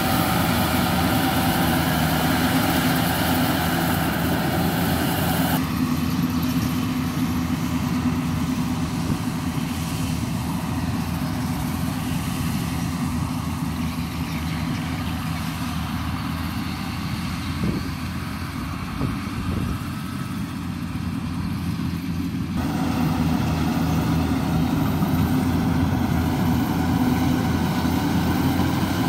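Yanmar 850 combine harvester's diesel engine running steadily under load while cutting rice in boggy ground. It is a little fainter in the middle stretch, and its tone changes abruptly at about 6 and 23 seconds in.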